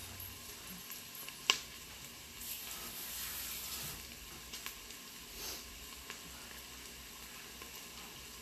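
Onions and garlic sizzling on the sauté setting of an electric multicooker: a steady soft hiss. There is one sharp click about a second and a half in, and a few fainter ticks later.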